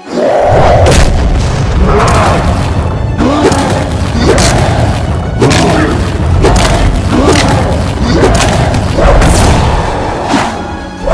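Loud music with a heavy, booming beat, hitting about once a second with short sweeping tones between the hits.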